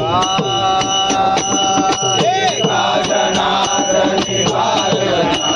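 Men singing a Marathi abhang, a devotional varkari song, opening on a long held note and then moving on through the melody. Under it runs a steady beat of sharp percussion strikes, about two a second.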